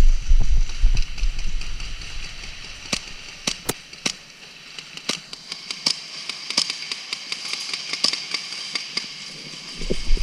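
Indoor airsoft play: heavy thumping footsteps for the first few seconds, then scattered sharp snaps of airsoft guns firing and BBs striking, irregularly spaced.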